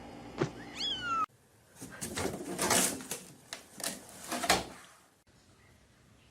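A cat gives one short meow that rises and then falls in pitch. After a cut comes a run of loud, harsh, noisy bursts lasting about three seconds, the loudest near the middle and near the end.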